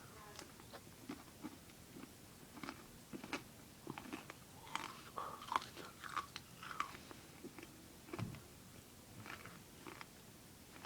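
Someone biting into and chewing a Crispy Crunch chocolate bar: faint, irregular crunches, busiest about halfway through.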